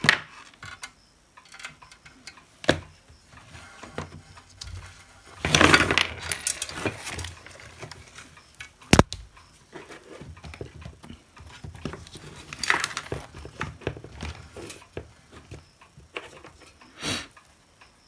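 Hands working the new hot air gun handle and its wires: scattered small clicks and taps of plastic parts, with two short spells of rustling and scraping and one sharp click about halfway through.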